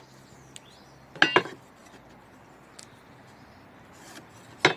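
Handling noises while setting up for a cut: a short cluster of ringing metallic clinks about a second in, a few faint ticks, and one sharp knock or click near the end. The saw is not running.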